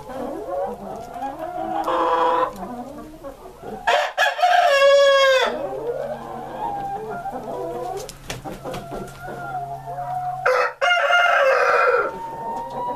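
A flock of Columbian Rock chickens clucking and murmuring, with loud rooster crows rising over it, the longest about four seconds in and another near the eleven-second mark.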